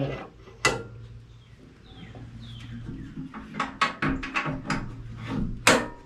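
Clicks and knocks of a wood chipper's metal access panel and its latch being worked by hand. There is a sharp click about half a second in, a run of lighter clicks and knocks, then another sharp click near the end.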